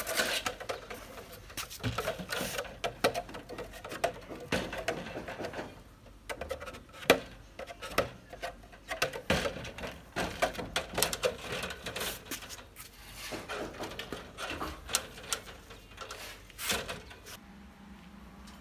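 Irregular clicks, taps and light knocks of hands handling cut plastic bottles and wire mesh on a wooden trap box, with one louder knock about seven seconds in.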